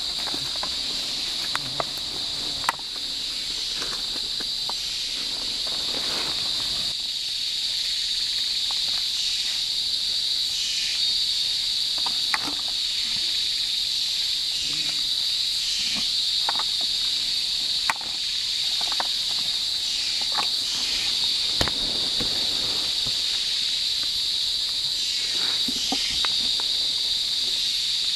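Steady, high-pitched drone of rainforest insects, with occasional sharp clicks and soft rustles.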